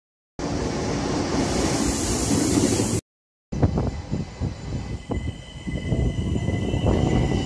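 Two edited takes of trains, each cut off by a short dead gap. First a red diesel shunting locomotive running. Then an ÖBB class 4024 Talent electric multiple unit rolling in, its traction equipment giving a steady high-pitched whine over the rumble and clatter of the wheels.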